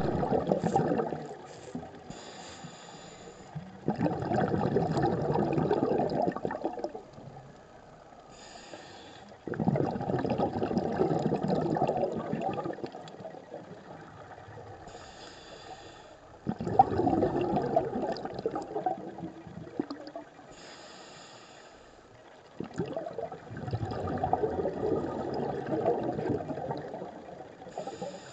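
Scuba diver breathing through a regulator underwater. A short hiss on each inhale alternates with a long, loud bubbling rush as the exhaled air leaves the regulator, repeating about every six seconds.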